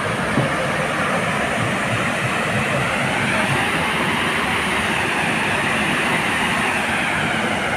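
Waterfall rushing: a steady, loud roar of falling water with no let-up.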